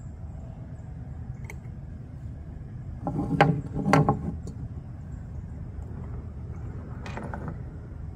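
Two sharp metallic knocks and clinks about three to four seconds in, with a softer rattle near the end, from handling a steel camp pot and a gas canister stove on a wooden picnic table, over a steady low rumble.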